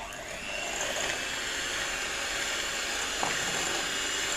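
Handheld electric mixer switched on and running steadily, its beaters whirring through a creamy mixture in a glass bowl. The motor starts suddenly and settles into an even whine.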